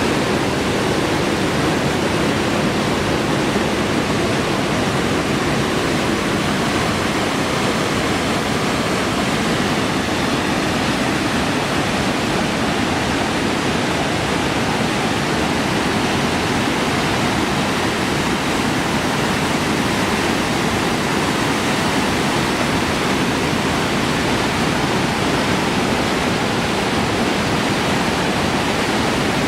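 Waterfall rushing: a loud, steady roar of falling water that does not change.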